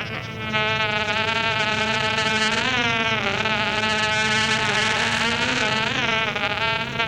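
Modular synthesizer holding a steady drone, swelling in about half a second in, its tone wavering and bending briefly about three seconds in and again near six seconds.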